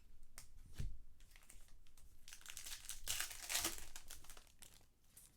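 Trading card pack wrappers being torn open and crinkled in the hands, with a few sharp ticks at first and a longer stretch of crinkling about halfway through that is the loudest part.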